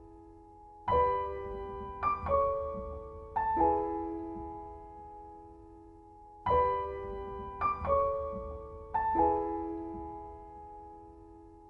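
Background piano music: slow chords struck a few at a time, each left to ring and fade, the same short phrase coming round again about halfway through.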